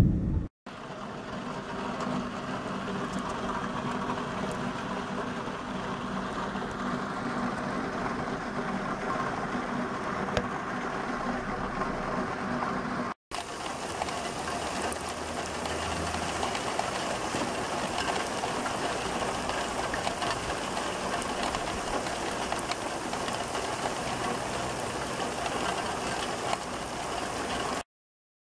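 Heavy rain pouring down steadily, in two stretches with a brief break about 13 seconds in, cut off suddenly near the end.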